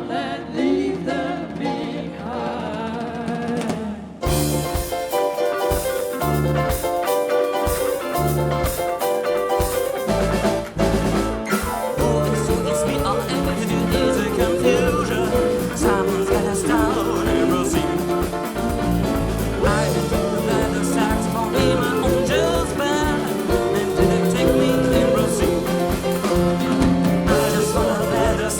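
Live band music from a film-music medley played by a drummer, bass, guitar and keyboards. For about the first four seconds the band plays sparsely, then the drums and bass come in hard and the full band plays on with a steady beat.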